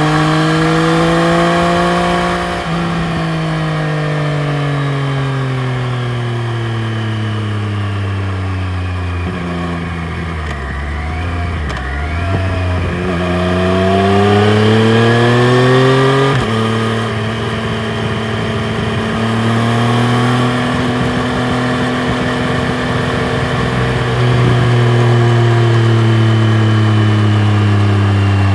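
2020 Triumph Street Triple RS's inline three-cylinder engine on the road. Its note falls steadily for about ten seconds as the bike slows, then climbs under acceleration until a gearshift drops the pitch sharply, and after that runs fairly steady with gentle rises and falls.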